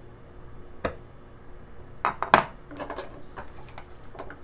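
Carving tools and a basswood block handled on a wooden workbench: a sharp knock just under a second in, a louder clatter about two seconds in as the carving knife is set down, then a run of small clicks and taps.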